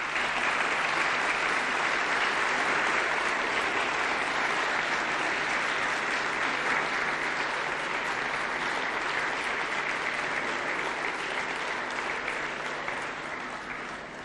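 Theatre audience applauding steadily, fading out near the end.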